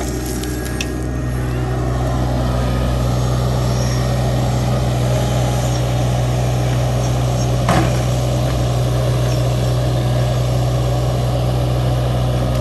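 Engine of a construction machine running steadily, a little louder from about two seconds in, with a single short knock about eight seconds in.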